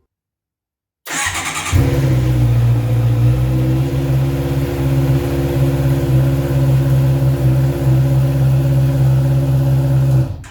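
Heavy motorcycle started through its newly refitted exhaust: the starter cranks briefly about a second in, the engine catches almost at once and settles into a loud, steady idle, which cuts off just before the end.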